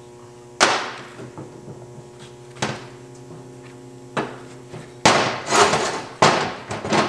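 Heavy metal car parts knocking and clanking on a workbench as a trailing arm, caliper bracket and brake rotor are handled: three sharp knocks about two seconds apart, each leaving a ringing tone, then louder clattering near the end.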